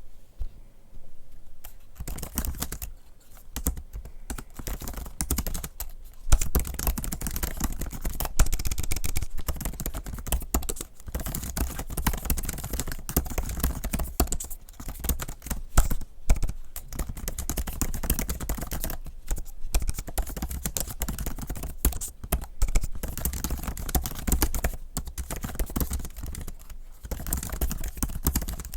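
Fast, continuous typing on an M1 MacBook Pro's bare scissor-switch keyboard, with no keyboard skin fitted: a dense, irregular clatter of key clicks broken by short pauses. It starts about two seconds in.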